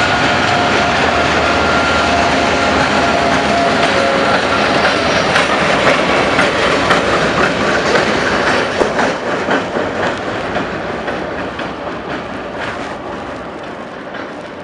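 Freight cars being shunted by an EMD GP9 switcher, rolling past with a steady high-pitched squeal for the first four seconds or so. Then a run of clicks as the wheels cross the rail joints, with the sound slowly fading toward the end.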